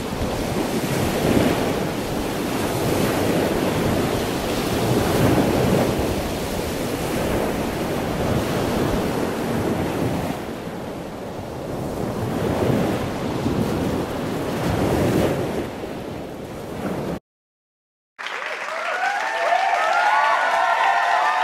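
Ocean surf breaking on a beach, the wash swelling and fading every few seconds, with some wind on the microphone. It cuts to silence about seventeen seconds in, and a second later a short outro jingle with high melodic tones begins.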